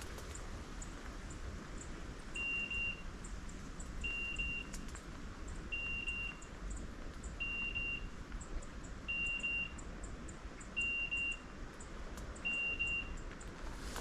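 Electronic beeper collar on a hunting dog giving a short high beep about every 1.7 seconds, seven times.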